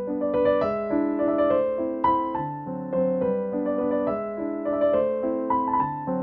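Background music: a piano playing a melody over chords.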